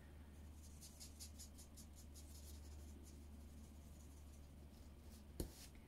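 Faint scratching of an alcohol marker's felt tip on a paper die-cut in quick, short colouring strokes. A single sharp click near the end.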